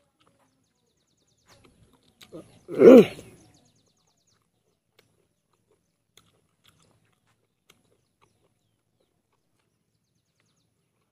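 One short, loud grunt-like vocal sound about three seconds in, with a few faint chewing clicks around it; otherwise near silence.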